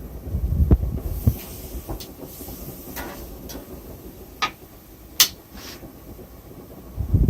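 Metal tongs clicking and tapping against the gas grill's grates as food is turned, about eight separate sharp clicks, the loudest about five seconds in, over a low rumble that is strongest in the first second.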